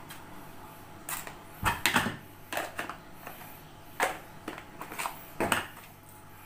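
A series of short, sharp clicks and light knocks: plastic seasoning containers and their lids being handled and set down on a tabletop.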